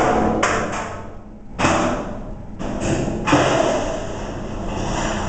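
Glass soda bottle falling down a high-rise building's metal trash chute: about five sharp bangs in the first three and a half seconds as it strikes the chute, each trailing off, then a steady echoing rumble from the shaft.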